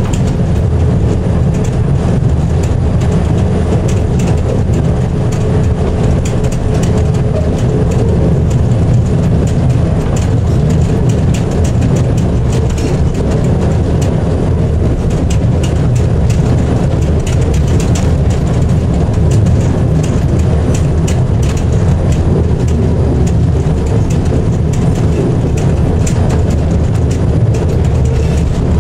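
Diesel locomotive DSA273 running along the line, heard from inside its cab: a steady low engine rumble, with the wheels clicking and rattling over the rails.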